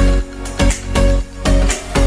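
Background electronic dance music with a heavy bass beat about twice a second.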